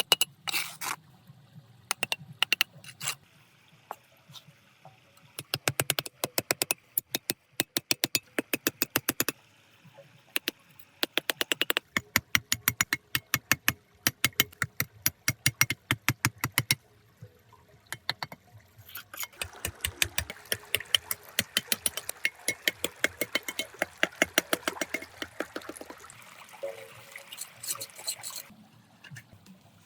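Quick runs of sharp small clicks and taps from handling miniature dam-building materials, with a stretch of running, splashing water from about two-thirds of the way through.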